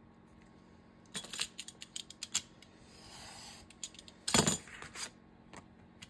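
Scissors snipping in a quick run of short clicks as a craft piece is trimmed, followed by a soft rustle and one louder knock about four seconds in.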